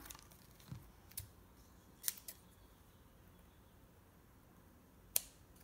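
Hand scissors snipping a small scrap: a few short, sharp snips at uneven spacing in the first half, then one louder snip near the end.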